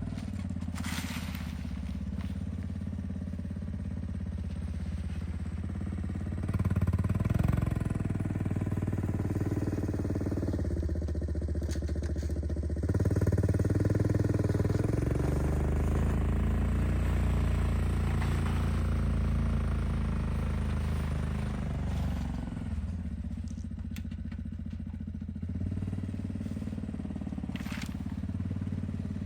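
1992 Honda Fourtrax two-wheel-drive ATV engine running under load while pushing a 46-inch plow blade through snow. The engine speed and loudness rise about six seconds in and again around thirteen seconds, then ease off after about twenty-two seconds.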